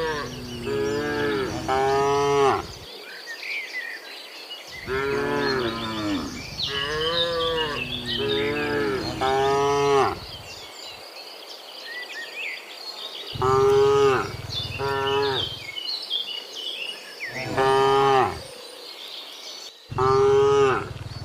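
A herd of cows mooing, many long calls one after another and overlapping, in clusters with short pauses between.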